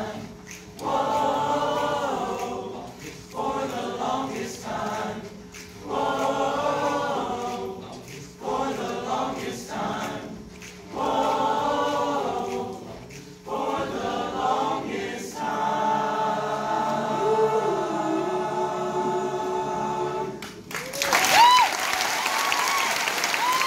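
Men's choir singing a cappella in short phrases, then holding one long final chord while a single voice slides beneath it. Applause and cheering break out near the end.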